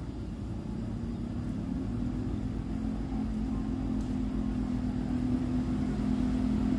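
A motor vehicle engine running with a low, steady hum that grows gradually louder.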